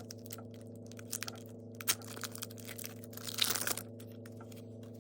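Foil wrapper of a Pokémon TCG booster pack crinkling and being torn open, with small crackles throughout and a longer tear about three and a half seconds in. A steady low hum runs underneath.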